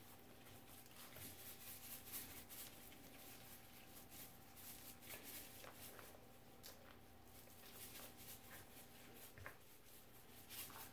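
Near silence: room tone with a faint steady hum, and faint soft rustles and a few light ticks from salt being sprinkled from a canister onto raw turkey skin.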